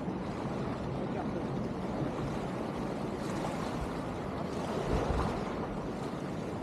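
Steady wash of sea surf with wind buffeting the microphone, growing a little louder about five seconds in.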